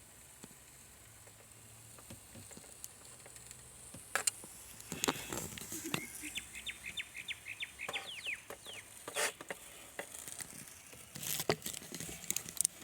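Chicken sizzling faintly in a 12-volt Roadpro roaster. Scattered clicks and knocks of the cooker and utensils, with a quick run of ticks in the middle.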